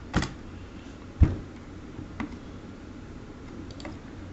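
A few sharp, isolated clicks of computer keys, about a second apart, the loudest about a second in, over a steady low room hum.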